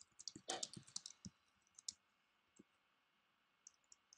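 Computer keyboard keys clicking as a short question is typed: a quick run of keystrokes in the first two seconds, then a few single taps near the end.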